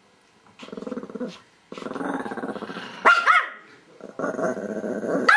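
Small dogs squabbling: long, rough growls in three stretches, broken by a sharp bark about three seconds in and another at the very end.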